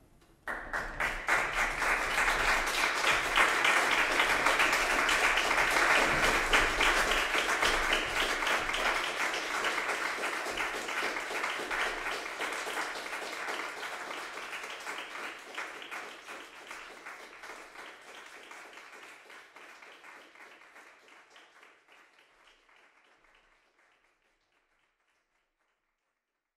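Audience applause breaking out suddenly as the piece ends, loudest in the first several seconds, then slowly dying away until it stops near the end.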